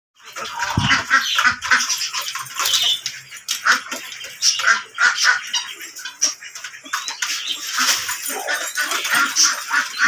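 Indian ringneck parakeets calling in a cage: a dense, unbroken run of short, shrill squawks and chatter.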